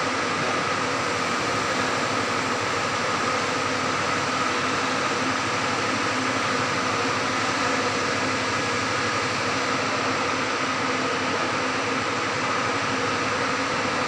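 Steady mechanical hum of building ventilation machinery: an even rush of air with a few faint steady tones, unchanging throughout.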